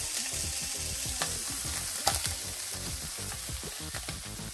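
Rolled ham slices wrapped around cheese sticks sizzling steadily in an oiled frying pan, with a couple of light clicks of metal tongs against the pan as they are set in.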